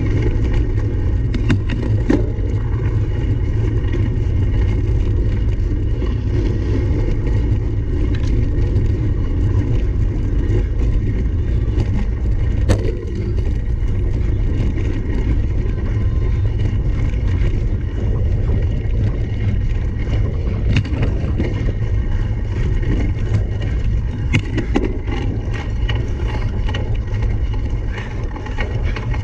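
Steady wind rumble on the microphone of a camera riding on a cyclocross bike during a race, with scattered knocks and rattles from the bike over rough ground.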